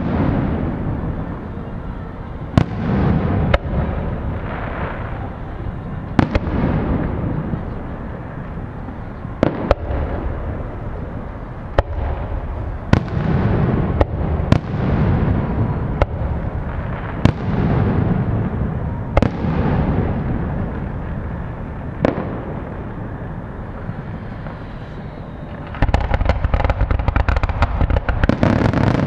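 Aerial fireworks shells bursting one after another, each a sharp bang followed by a low rolling rumble. About 26 seconds in, a rapid barrage of many crackling reports begins.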